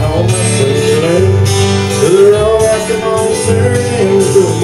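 Live music from an electronic keyboard player performing a song: a wavering melody over a steady bass line.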